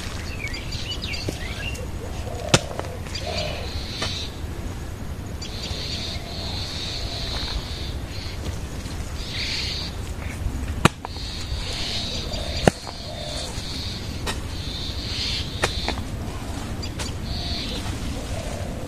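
Small birds chirping and calling again and again, with a few sharp knocks, the loudest about two and a half, eleven and twelve and a half seconds in, over a steady low rumble.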